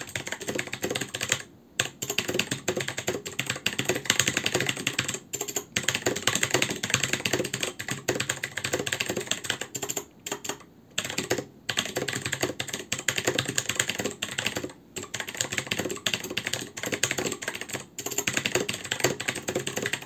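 Fast typing on an ALG K8614 (Altec Lansing) mechanical keyboard with clicky blue switches: a dense clatter of keystrokes, broken by a few short pauses.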